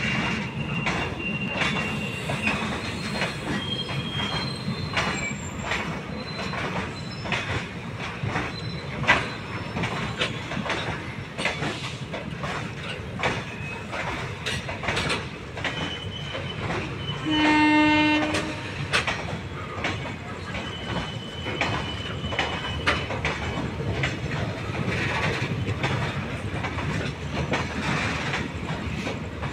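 Passenger train coaches rolling past: a steady wheel rumble and clatter over the rail joints, with several brief high wheel squeals and a sharp knock about 9 seconds in. About 17 seconds in, a one-second horn blast, the loudest sound.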